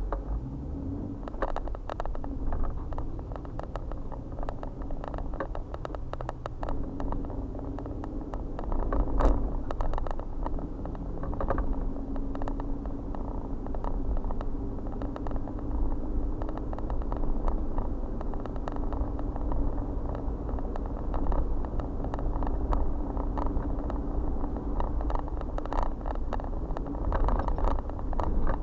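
Car pulling away from a stop and driving along a town road, heard from inside: steady engine and tyre rumble whose pitch rises as it gets under way, with frequent small clicks and knocks.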